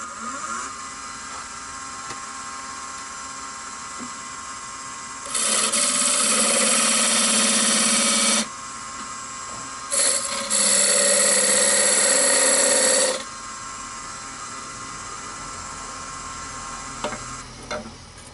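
Nova wood lathe starting up and running with a steady hum and whine. Twice, for about three seconds each, a turning tool cuts into the spinning wooden blank with a loud hiss, taking the hammer handle down about an eighth of an inch toward its 1.25-inch diameter.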